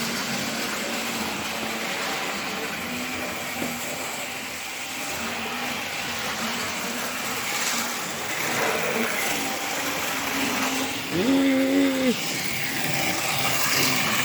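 Old model DMU train running along the layout track, its electric motor and gearing whirring loudly and steadily with the rattle of the wheels on the rails. About eleven seconds in a short pitched hum, rising then falling, briefly stands out as the loudest sound.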